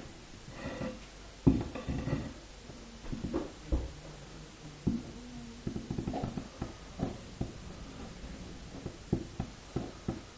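Table creaking and scratching: a scattered run of short creaks, clicks and scrapes, the loudest a sharp crack about a second and a half in.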